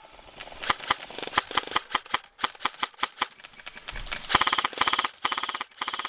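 Airsoft guns firing: scattered single sharp clicks and snaps, then a rapid full-auto rattle a little past four seconds in that lasts over a second.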